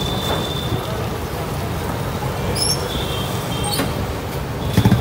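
Street traffic heard from a moving open rickshaw: a steady low road rumble with a few short high-pitched tones over it and a brief thump near the end.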